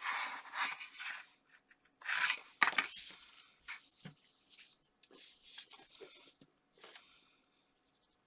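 Paper and card rustling and sliding as strips are handled and pressed onto a card base, coming in several short bursts with a few sharp clicks.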